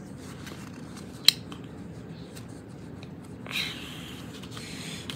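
A paper booklet being handled: one sharp click about a second in and a short paper rustle a little past the middle, over faint steady room noise.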